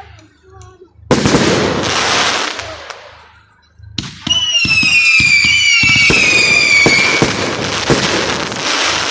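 Fireworks display: a loud bang about a second in that fades away over a couple of seconds. From about four seconds, a rapid run of bangs and crackles with several high whistles falling slightly in pitch for about three seconds, followed by more bursts.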